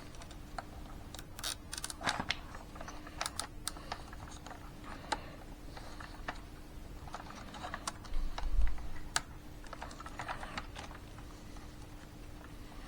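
Hands handling small plastic parts, wiring and tape at a workbench: irregular light clicks and short rustles, with one dull knock about eight and a half seconds in, over a faint steady hum.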